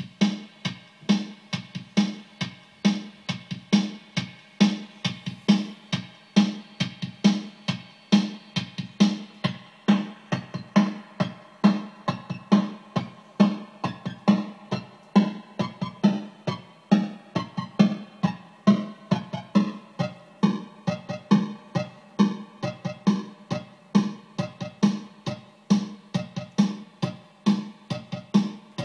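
Repeating guitar riff played through a sample rate reducer pedal built from a Bugbrand schematic, at about two strong plucked notes a second. As the sample-rate knob is turned, thin extra tones from the sample-rate reduction slide down in pitch through the middle stretch.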